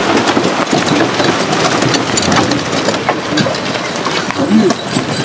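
Wooden horse-drawn cart on rubber wheels rattling and knocking as it rolls over a rough dirt track, with short creaks from its boards. A mountain river rushes steadily underneath.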